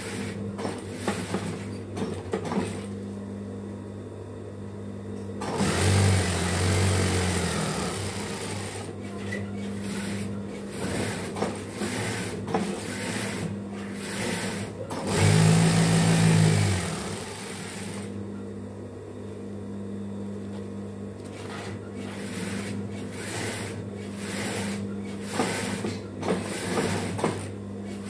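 Industrial flatbed sewing machine with its motor humming steadily, running in two fast stitching stretches, about six seconds in and again about fifteen seconds in, as a fabric strip is sewn. Short clicks and knocks from handling the fabric and machine come between the runs.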